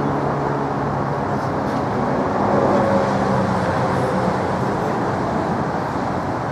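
Steady outdoor background rumble with a faint low hum running through it; no distinct knock or voice stands out.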